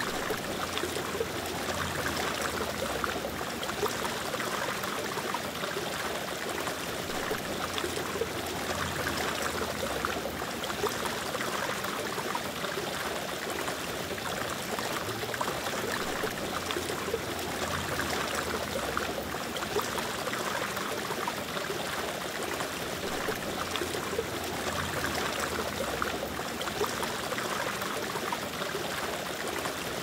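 Aquarium water trickling and bubbling steadily, the running water of a tank's filter and aeration.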